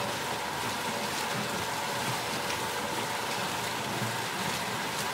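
Water pouring from a feed pipe onto a homemade water wheel and splashing as the wheel turns: a steady, rain-like rush with faint scattered drips and a thin steady whine underneath.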